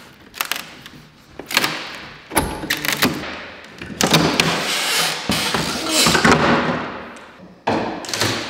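Plywood shipping crate lid being pried open: a few sharp knocks and cracks in the first three seconds, then a longer stretch of creaking, scraping wood as the glued and nailed lid is worked loose, and another sudden loud knock near the end.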